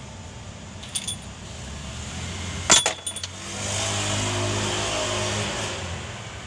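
Hand tools on a Mitsubishi 4D56 engine's cylinder head as its head bolts are being loosened: a few light clicks, then one sharp metal clank a little before the middle. Right after, a motor vehicle's engine drones steadily for about two and a half seconds, then eases off.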